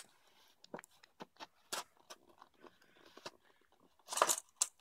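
A knife blade cutting and prying at a stiff plastic blister pack holding a fishing lure: scattered small crackles and scrapes of the plastic, with a louder burst of crackling near the end.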